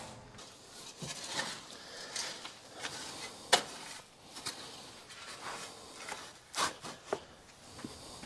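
Shovel scraping and scooping pine shavings and chicken litter out of a wooden coop run: scattered scrapes, rustles and light knocks against the wood, with a sharp knock about three and a half seconds in.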